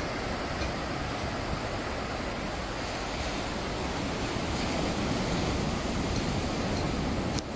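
Ocean surf breaking on a sandy beach, a steady rushing wash of noise. A brief click near the end.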